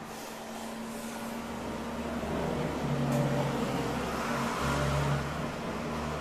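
A motor vehicle's engine running nearby, a steady low hum that grows louder through the middle and eases off a little near the end.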